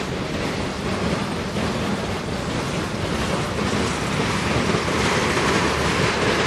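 Freight cars rolling past at speed: a steady rumble and rush of steel wheels on rail, a little louder near the end as tank cars go by.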